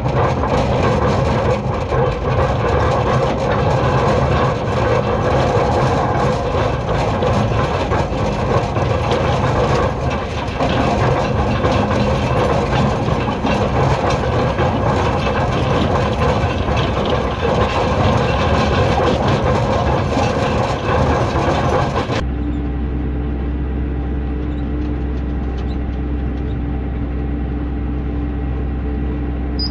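Tractor engine running while towing a roller seeder across a paddock, with the clatter of the implement over the ground. About three quarters of the way through, the sound cuts suddenly to a quieter, steadier engine hum.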